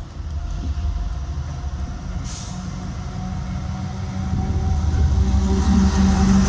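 Colas Rail Class 70 diesel locomotive running in through the station, its GE PowerHaul V16 engine droning steadily. The sound grows louder over the last couple of seconds as the locomotive comes alongside.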